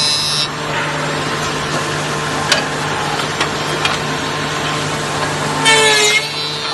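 CNC oval tenoning machine running on wood: a steady motor hum under an even rushing noise, with a few sharp clicks in the middle. Background music comes in briefly near the end.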